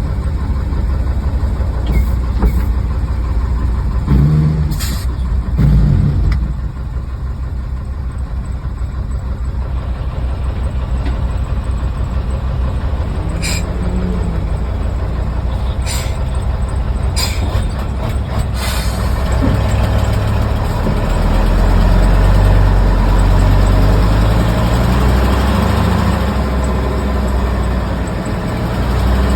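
Heavy diesel engines of a logging truck and the bulldozer towing it, running steadily. They swell louder and deeper from about twenty seconds in, with several brief sharp sounds in between.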